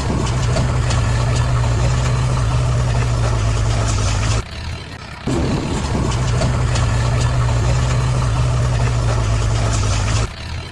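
Idling truck engine sound effect: a steady low diesel-like hum that cuts off abruptly about four and a half seconds in, comes back a second later, and cuts off again near the end.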